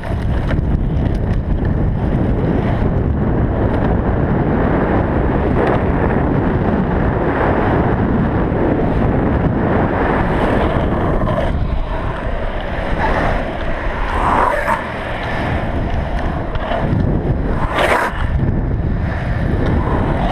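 Longboard on Rayne 65 mm urethane wheels rolling fast down asphalt: a steady loud rumble mixed with wind buffeting the action camera's microphone, with a few brief sharper bursts in the last half.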